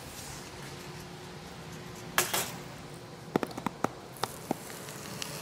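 A sharp knock about two seconds in, followed by a quick run of light clicks and taps, as laser engraver parts and packaging are handled and set down on a wooden workbench. A faint steady hum runs underneath.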